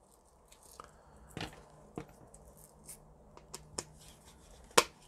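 Scattered light clicks and knocks of hands handling a random orbital sander's backing pad and parts during reassembly, the sharpest click near the end, over a faint steady hum.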